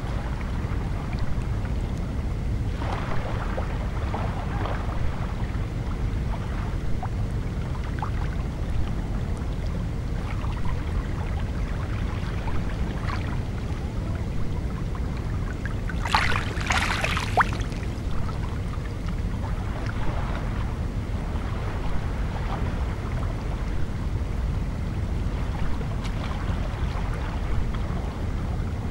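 Small sea waves lapping against a pebble shore, with scattered little splashes over a steady low rumble. One louder splash comes a little past halfway.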